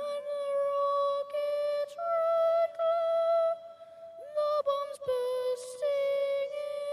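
A single high voice singing a slow tune in long held notes, with small upward scoops into several of them.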